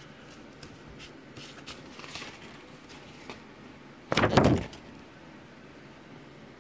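Paper rustling as the pages of a printed laptop manual are handled: light crinkles and ticks, then one loud, brief rustle about four seconds in as the pages are flipped over.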